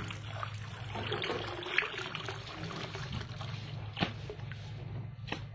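Water trickling from a garden hose into a shallow inflatable paddling pool, over a steady low hum, with two short knocks about two seconds apart.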